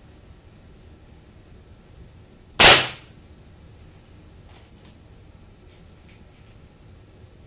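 A single shot from a .177 spring-piston air rifle: one sharp crack about two and a half seconds in that dies away within a fraction of a second, followed later by a few faint clicks.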